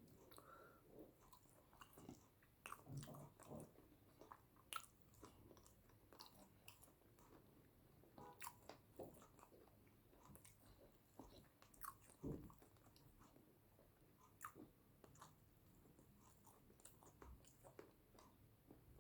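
Quiet, close-miked chewing of yam with eggplant sauce: soft, irregular mouth clicks and chews.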